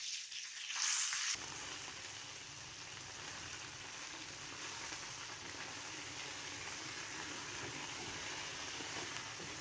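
Chicken pieces frying in oil and butter in a pan: a steady sizzle that sets in abruptly about a second in and holds evenly.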